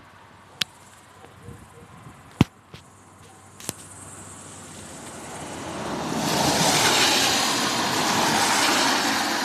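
A car driving past on a wet road: a few sharp clicks, then tyre hiss that swells from about five seconds in and stays loud to the end.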